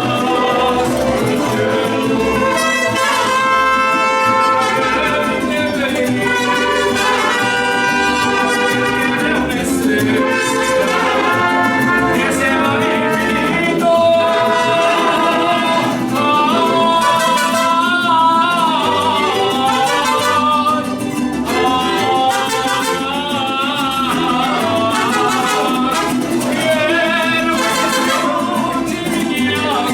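Mariachi band playing a song, with trumpets carrying the melody.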